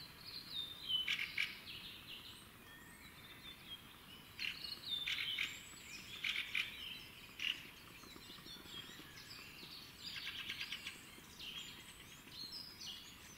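Wild songbirds singing in a spring woodland: short chirps, downward-sliding whistles and quick trills from several birds, with a run of rapid trilling about ten seconds in.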